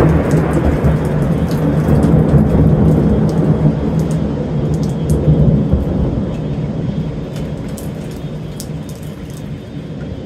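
Thunder rolling after a strike: a long, deep rumble, loud at first and dying away over the last few seconds.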